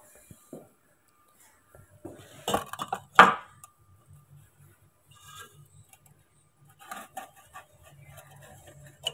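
Steel tea pot, ceramic cup and saucer knocking and clinking as they are handled. Two sharp knocks about two and a half and three seconds in are the loudest, with lighter clatter later.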